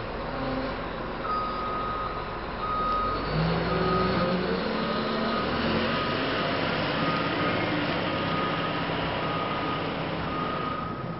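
2015 Caterpillar 966M wheel loader backing up: its diesel engine runs and revs up as the machine pulls away, with the reverse alarm sounding a high beep about once a second from about a second in.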